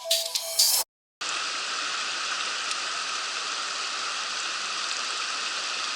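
Mountain stream rushing steadily over rocks, starting after the end of an intro music jingle with drum hits, which cuts off about a second in.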